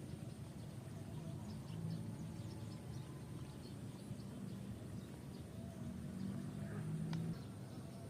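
Quiet outdoor ambience: a low steady hum with faint short chirps and a steady high tone, and a single sharp click about seven seconds in.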